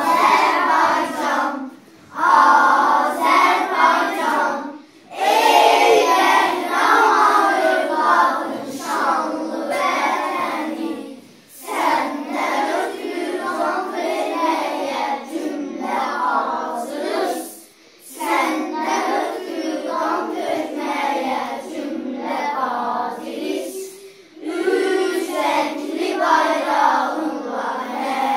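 A class of young children singing a song together in phrases a few seconds long, with brief pauses between them.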